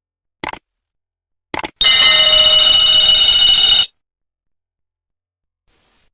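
Sound effect: a short click, a quick double click about a second later, then a loud steady bell-like ringing for about two seconds that cuts off suddenly.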